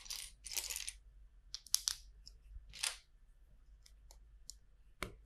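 LEGO bricks rattling and clicking as they are sifted and picked out of a pile of loose parts. There are two short rustling shuffles in the first second, a few sharp clicks after that, another brief shuffle, and one sharp click near the end.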